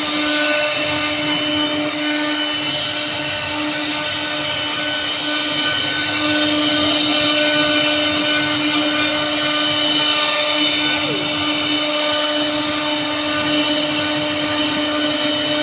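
Electric wood planer running steadily: a constant motor whine with a hissing rush.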